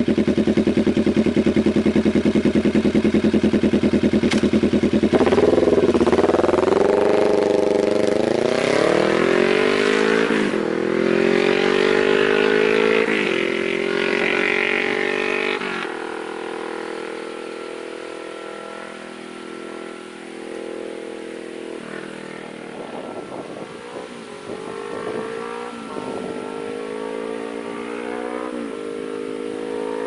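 2016 Kawasaki Vulcan S 650's parallel-twin engine through a Danmoto Highwayman aftermarket exhaust: idling, then about five seconds in pulling away, revving up and shifting through several gears as it fades into the distance. In the second half it is heard again more faintly, revving up through the gears as the bike comes back, growing louder near the end.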